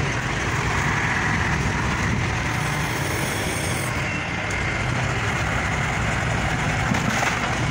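Diesel engine of a Kato truck-mounted mobile crane running steadily under a heavy lift.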